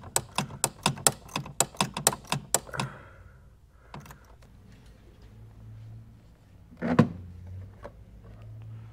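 Hand ratchet clicking rapidly, about four clicks a second, as the bolts holding the power brake booster to the firewall are backed off, stopping about three seconds in. About seven seconds in comes a single loud thunk.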